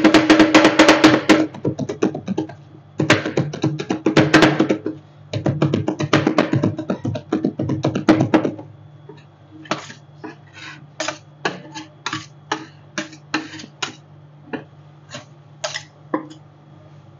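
Metal spatulas clattering rapidly on a rolled-ice-cream cold plate in three quick bursts, then slower single taps about two a second. A steady low hum runs underneath.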